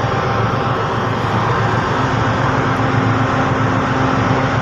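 Steady loud drone of ship's machinery at the funnel: a low hum under a rushing hiss, with a second, higher hum joining about two seconds in.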